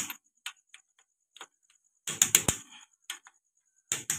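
Click-type torque wrench tightening cylinder head bolts: two bursts of rapid ratchet clicking, about two seconds in and again near the end. The wrench's click signals that the set torque of 80 has been reached and the bolt should not be tightened further.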